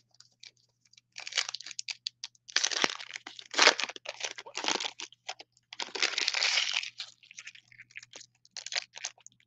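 Foil wrapper of a Donruss Optic trading-card pack being torn open and crinkled by hand, in irregular bursts of crinkling and tearing that start about a second in.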